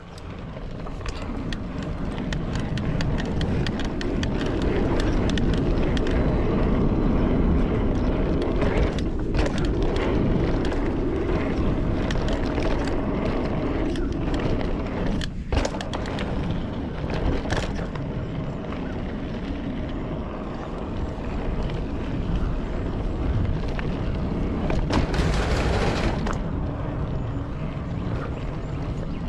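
Wind rumbling on the microphone of a mountain bike being ridden fast down a dirt trail, with knobby tyres rolling on the dirt and scattered clicks and rattles from the bike over bumps. It builds over the first few seconds as the bike gathers speed, and near the end there is a brief hiss.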